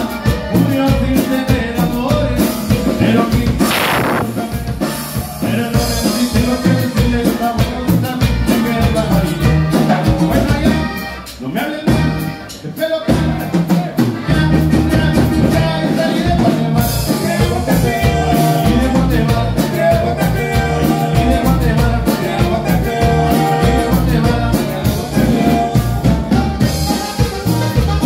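Live norteño band playing a dance tune: button accordion and saxophone over electric bass, guitar and drum kit. The music thins out briefly about eleven seconds in, then picks up again.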